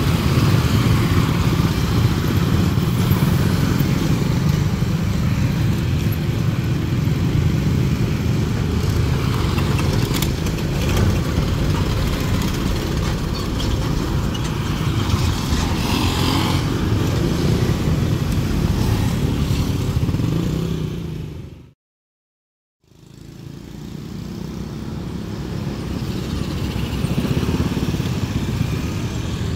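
Steady low vehicle engine noise, which drops to silence for about a second around three-quarters of the way through, then fades back in as road traffic with motorcycles running.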